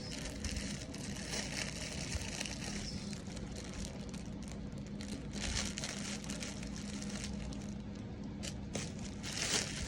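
Plastic packaging rustling and crinkling in handling as an item is unwrapped, in irregular bursts that grow busier near the end, over a low steady hum.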